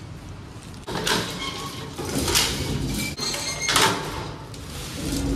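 Collapsible steel scissor-grille gate of an old lift being slid by hand, its metal bars rattling and scraping in about three bursts.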